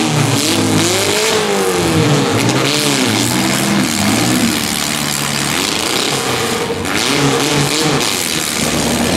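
Demolition derby mini-truck engines revving, the pitch rising and falling again and again, over a steady rushing noise.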